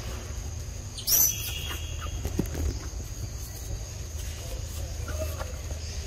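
Forest ambience: a steady high-pitched insect drone over a low rumble. About a second in, a brief shrill animal call rings out, the loudest sound here, followed by a few small knocks and rustles.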